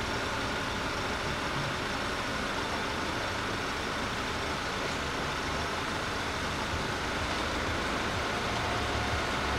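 Engine of a small van idling in a low, steady rumble at a closed railway level crossing. Over it runs the crossing's electronic warning bell, a steady high tone.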